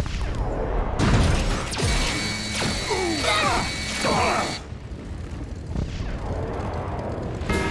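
Cartoon battle sound effects. A sudden blast about a second in is followed by mechanical whirring and gliding energy-weapon zaps, which cut off abruptly a little past the middle.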